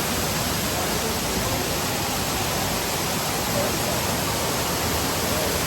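Waterfall rushing: a loud, steady, even hiss of falling water with no breaks.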